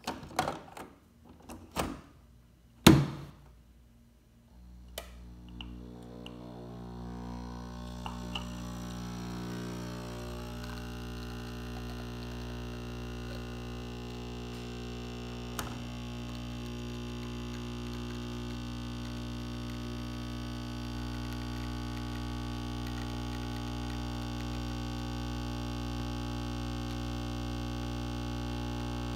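Breville Nespresso capsule espresso machine: a few clicks and thunks as the capsule goes in and the machine is shut, the loudest about three seconds in. Then its pump starts humming about four and a half seconds in, swells over a few seconds and runs steadily while the espresso pours.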